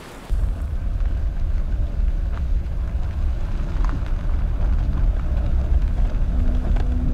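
Car driving, a steady low rumble of engine and road that cuts in suddenly just after the start, with a few faint clicks over it. A held low musical note comes in near the end.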